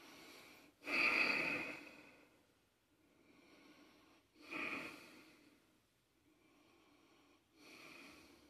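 A person breathing out heavily close to the microphone three times: a long breath about a second in, the loudest, a shorter one near the middle and a faint one near the end.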